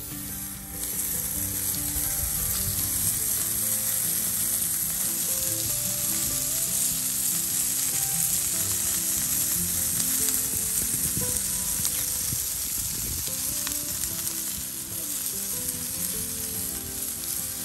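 Chicken wings sizzling on a hot stainless-steel grill plate over campfire coals: a steady, dense hiss of cooking fat.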